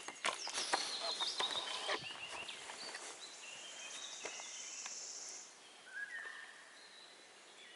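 Small birds calling, with short chirps and a high trill lasting about a second and a half midway. A run of sharp clicks and crackles comes in the first two seconds.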